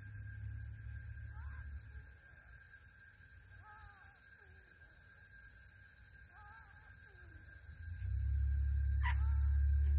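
Serama chickens giving a few soft, short clucks a couple of seconds apart over a steady low hum. About eight seconds in, a low rumble turns loud and stays, with a single click just after.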